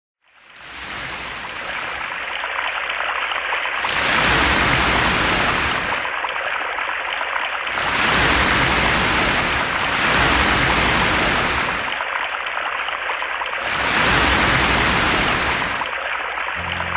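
Rushing surf of ocean waves, swelling and easing about every four seconds, used as a sound effect. A low musical tone enters near the end.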